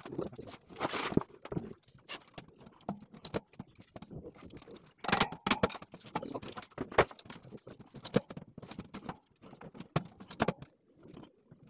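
Irregular clicks, knocks and light rattles of a wire pull-out basket being handled and fitted into a kitchen cabinet.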